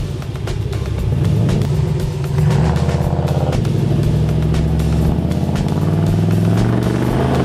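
Chevrolet Monte Carlo SS engine pulling the car away and accelerating, its pitch rising over the first couple of seconds and then holding steadier. A music track plays over it.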